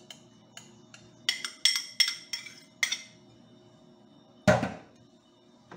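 A utensil tapped repeatedly against the rim of a glass bowl to knock crushed garlic off it: several sharp clinks with a short ring, some in quick succession. Then, near the end, one louder clunk as something is set down in the stainless-steel sink.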